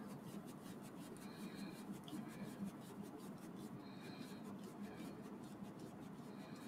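Small screwdriver turning a tiny screw into a model kit's motor part, making faint scratchy clicking as it turns. A brief high squeak comes twice.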